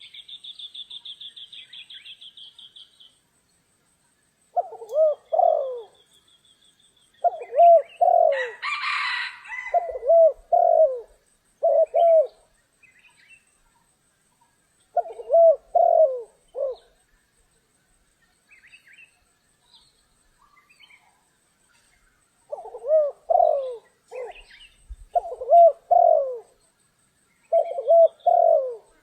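Spotted doves cooing in repeated short phrases of several low notes, with gaps of a few seconds between them. A small bird's fast, high trill sounds in the first three seconds, and a brief rustling burst comes about nine seconds in.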